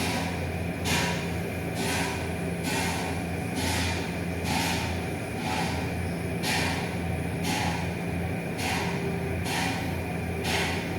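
Repeated banging, about once a second with slightly uneven spacing, over a steady low hum.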